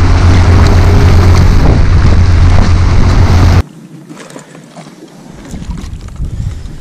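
Motorboat running fast: a loud rush of wake water and wind on the hull-mounted microphone over a low steady motor hum. It cuts off abruptly about three and a half seconds in, leaving quiet wind and water with a few faint ticks.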